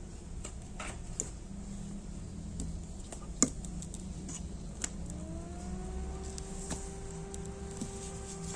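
A few clicks from handling the fan and its wiring, the sharpest about three and a half seconds in. Then, about five seconds in, an AVC B6015R07MY 60 mm Sony PS2 cooling fan on a hydraulic bearing starts up at about 7 V: its whine rises in pitch for about a second as it spins up, then holds a steady tone.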